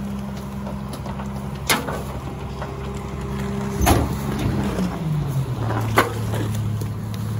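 Miller rear-loader garbage truck running at a standstill, a steady low drone that drops in pitch a little past halfway and settles lower. Three sharp knocks sound over it, about two seconds apart.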